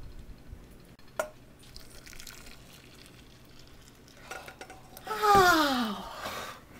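Hot milk pouring from a saucepan into a metal mixing bowl, with a sharp clink about a second in. Near the end a loud tone slides down in pitch for about a second over the sound of the pour.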